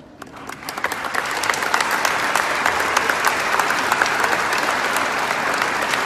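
Large audience applauding. It starts with a few scattered claps and swells into full, sustained applause within about a second and a half.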